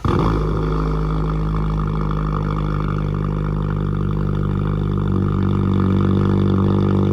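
Emergency alert tone over weather radio: a loud, steady, buzzy tone with many layered pitches. It comes in abruptly and holds for about eight seconds.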